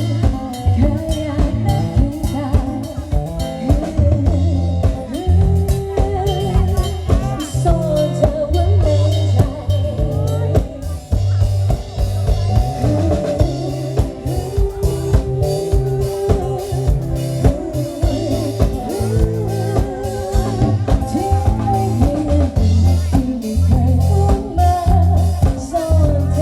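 Live band music amplified through a PA: a drum kit keeping a steady beat under a bass line, with a wavering melody on top.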